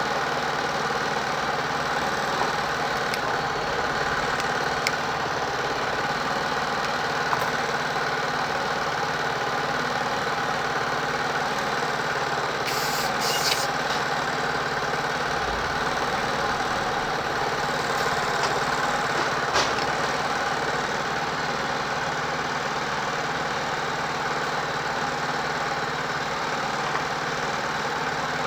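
A steady mechanical hum holds the same pitch throughout, with a few faint clicks. Two short, high hisses come close together about halfway through.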